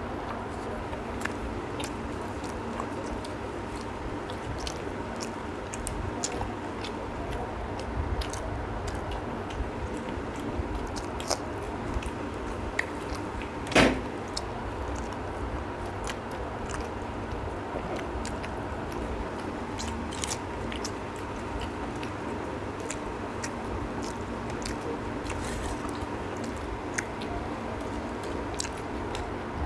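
Two people eating roti and egg curry with their hands: chewing with scattered small clicks and taps, over a steady hum. About halfway through comes one louder knock.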